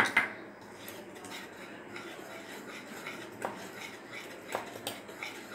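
Metal wire whisk beating thick cake batter in a bowl, with milk just added, a steady scraping stir broken by a few sharp clicks as the wires strike the bowl.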